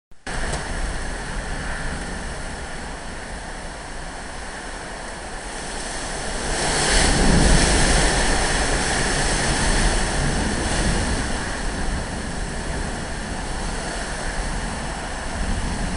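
Hurricane Sandy's storm wind blowing hard and buffeting the microphone with a low rumble, swelling into a stronger gust about seven seconds in before easing back to a steady roar.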